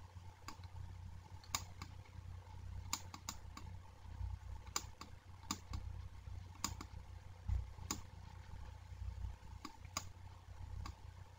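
Faint, irregular clicking, a click every second or so and sometimes a few close together, as handwriting is drawn on a computer screen with a pen tool. A low hum runs underneath.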